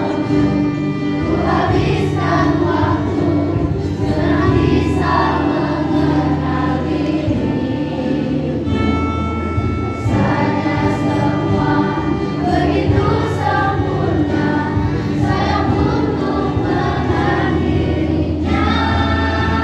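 A song with a choir of voices singing over a steady, sustained bass accompaniment.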